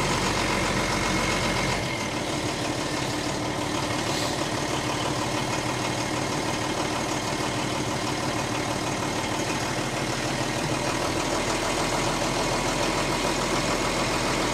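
Renault Midliner M180 truck's turbo-diesel engine running steadily in first gear, with a slight change in the sound about two seconds in. Only the jacked-up rear wheels are turning, spinning in the air, because the front axle is not driving.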